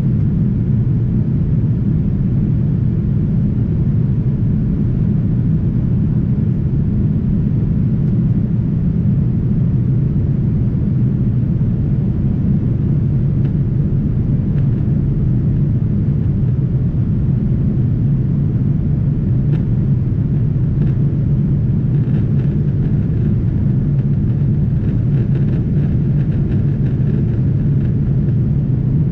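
Steady low rumble inside a Boeing 787-9 cabin in flight: engine and airflow noise heard from a window seat, with a few faint clicks in the second half.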